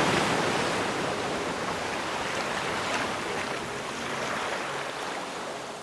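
Ocean surf: the wash of a wave slowly fading away.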